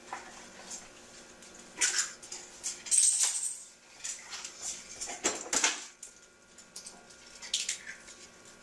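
Eggs being cracked on the edge of a mixing bowl and their shells pulled apart: a few separate sharp cracks and clatters, the loudest about three seconds in.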